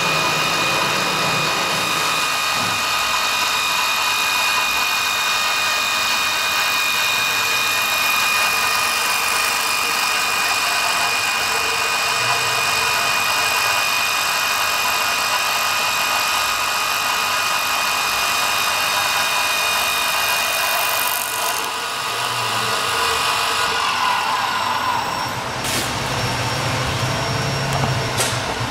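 CNC wood lathe turning a wooden blank into a gourd shape: a steady high motor whine over the hiss of the cutter shaving the spinning wood. Near the end the whine drops away, a falling tone follows, and there are two sharp clicks.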